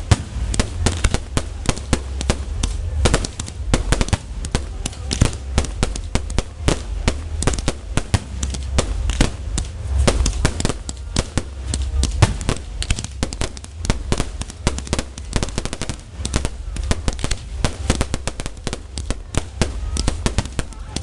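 Fireworks display going off in a rapid, unbroken barrage: many sharp bangs and crackles every second as shells are launched and burst.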